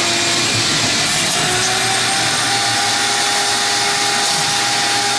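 Shop vac running steadily, sucking standing water out of a washing machine tub that will not drain, with a faint whine over the rush of air.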